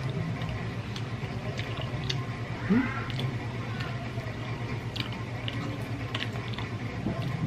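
Fingers tearing meat off roasted chicken bones, with small wet clicks and crackles scattered through. A brief rising tone stands out about three seconds in, over a steady low hum.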